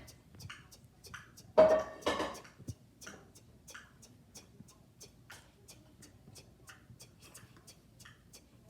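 A person imitating a 2001 Toyota Camry's turn-signal blinker with mouth clicks: a steady tick-tock of about two to three clicks a second. A brief vocal sound comes about a second and a half in.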